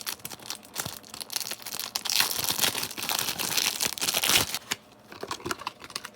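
Foil booster pack of trading cards being torn open and crinkled, the loudest crackling about two seconds in, easing to lighter crinkles and clicks in the last second and a half.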